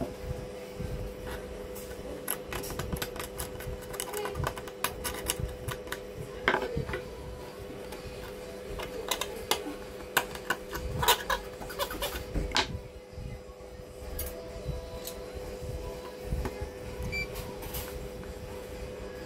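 Hobby knife blade scraping and scratching at a copper trace on a TV main circuit board, in irregular clicks and scrapes, cutting the trace to isolate a short circuit. Near the end a multimeter's continuity tester gives a brief beep as its probes touch the board, showing the short is still there.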